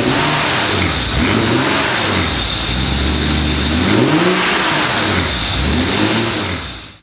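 Porsche 964's air-cooled flat-six engine running, blipped up and back down to idle several times. It fades out near the end.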